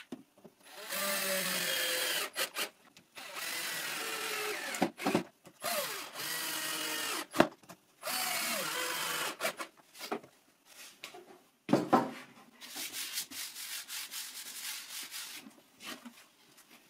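A power drill-driver drives screws with washers through a plunge router's metal base into a plywood board, in four runs of about a second and a half each, its motor note sagging as each screw bites. Lighter scraping and clicking of handling follow near the end.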